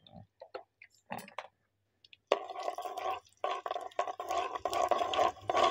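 Fennel seeds frying in hot oil in an earthen pot: a few scattered faint pops at first, then, from about two seconds in, a dense crackling sizzle as a ladle stirs the seeds.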